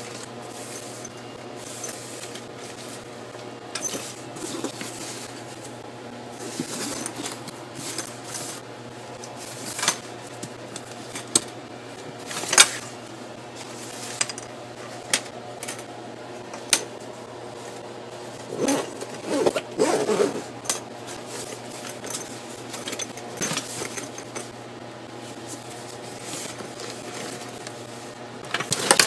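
A nylon camera bag being handled and opened: irregular clicks and taps from its plastic buckles and zipper pulls, with fabric rustling and zipping. There is a denser stretch of rustling about two-thirds of the way through.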